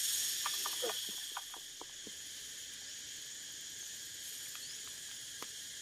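Insects buzzing steadily at a high pitch, a little louder for the first second, with scattered faint short chirps or ticks below it.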